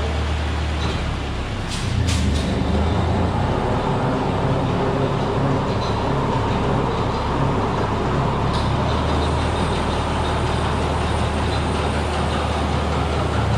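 Ford 8N tractor's four-cylinder flathead engine running steadily while it warms up. It gets a little louder about two seconds in, with a couple of short clicks at that point.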